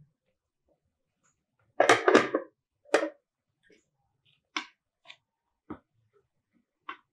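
Dishes clinking at a dinner table: serving spoons and plates knocking against bowls and plates as food is served. There is a louder clatter about two seconds in, another a second later, then a few lighter single clinks.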